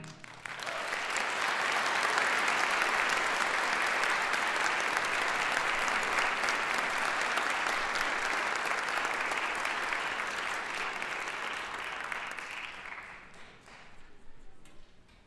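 Audience applauding in a concert hall at the end of a band piece. The clapping swells up within the first two seconds, holds steady, then dies away about thirteen seconds in.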